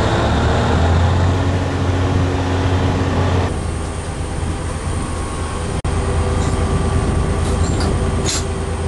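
FS D145 diesel shunting locomotive's engine running with a steady low drone. The sound changes abruptly about three and a half seconds in, and there is a brief dropout near six seconds. A few faint clicks come near the end.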